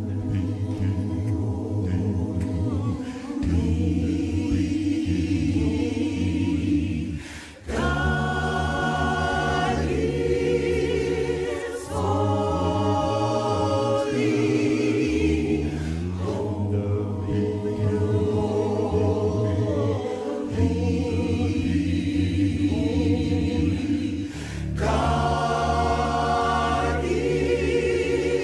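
Mixed a cappella choir singing sustained gospel chords over a strong bass line, in phrases separated by short breaks every four seconds or so.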